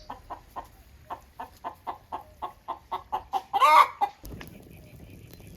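Domestic chicken clucking in a quick run of short clucks, about four a second, ending in one louder, longer squawk; then the clucking stops and a low, even rustling noise remains.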